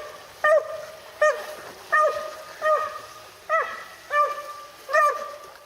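A hound baying: about seven loud, drawn-out barks at a steady pace of roughly one every 0.7 seconds, each starting sharply and trailing into a held, ringing tone.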